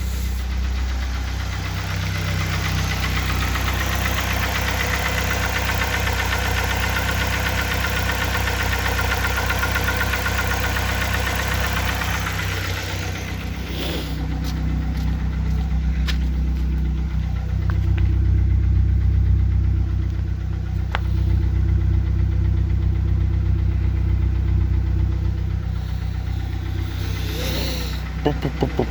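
2004 Mazda Tribute's 2.3-litre four-cylinder petrol engine idling while warming up, with a light knock starting to come through. The knock persists even after a complete timing-chain job (chain, sprockets, tensioners, guides) and new spark plugs; its cause is unknown to the owner, and others have blamed the crankshaft or the camshaft.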